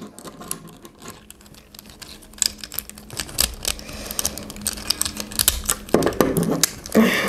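Plastic clicking and rattling of a small transformable toy robot figure being pushed and folded by hand, its joints and panels snapping into place. The clicks come irregularly, getting denser after the first couple of seconds.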